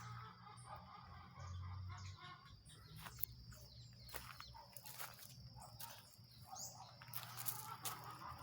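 Faint farmyard outdoor ambience: birds calling, over a steady high thin buzz and a few sharp clicks.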